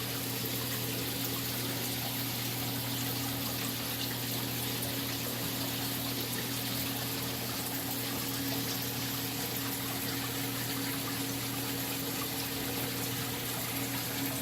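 Saltwater aquarium system running: steady trickling water flow over a constant low pump hum.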